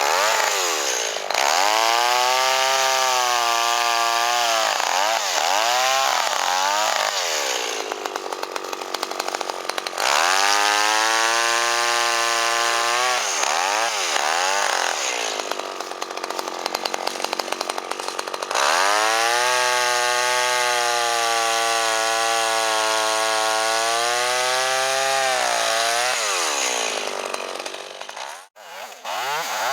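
Two-stroke chainsaw run up to full throttle three times for several seconds each, cutting through fallen pine logs, and easing back to idle between cuts. The engine cuts off near the end.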